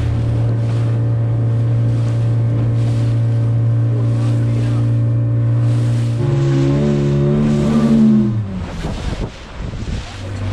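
Fishing boat's engine running at a steady pitch while under way. About six seconds in its pitch shifts and wavers, then falls away about eight and a half seconds in, leaving a moment of wind and water noise before a steady engine drone is heard again near the end.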